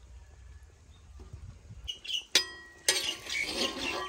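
A metal spatula knocks twice against a steel karahi, a little over halfway in, each hit ringing briefly; scraping and stirring follow.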